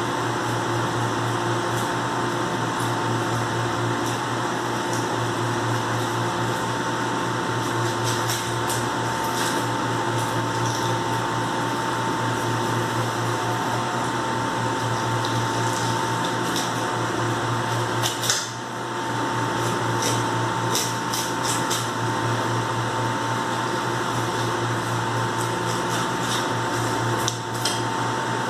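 Steady machine hum with a faint whine on top, running without change, like a fan or cooling unit. Now and then a few light clicks and taps from a knife working on a cutting board as a salmon is filleted.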